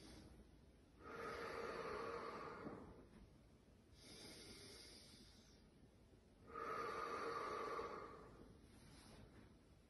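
A woman breathing deeply: two long, breathy "haa" exhales through the open mouth, about a second in and again about six and a half seconds in, each after a softer in-breath.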